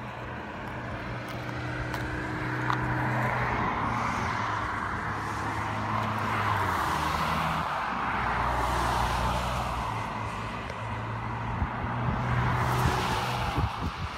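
Cars driving past on a two-lane road, their tyre and engine noise swelling and fading several times.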